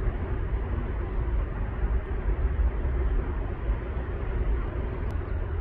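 Steady outdoor ambience: a low rumble under an even hiss, with no distinct events.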